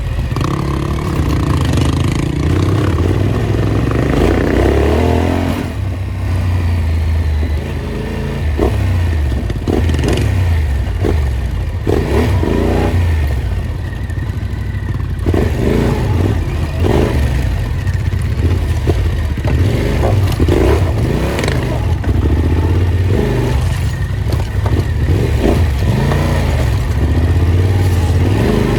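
Off-road motorcycle engine running under load, its revs rising and falling over and over, with repeated knocks and clatter from the bike going over rough ground.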